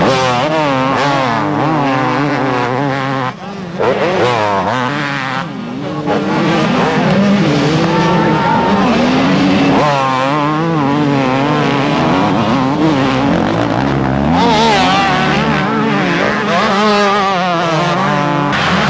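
Several motocross bikes racing, their engines revving up and down in pitch as the riders accelerate and shift, with more than one engine heard at once. The sound drops briefly about three and a half seconds in.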